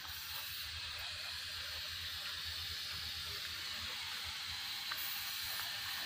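Steady background hiss with a low, fluttering rumble underneath, and no distinct events.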